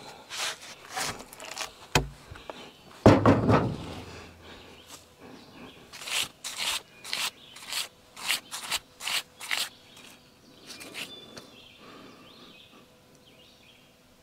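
Hatchet chopping into a walnut log: separate sharp blows into the wood, one heavy thud about three seconds in, then a run of quicker strokes, about two a second, from about six to ten seconds in. The wood is being cut away around a piece of embedded metal, an eye bolt or big nail, that the sawmill blade struck.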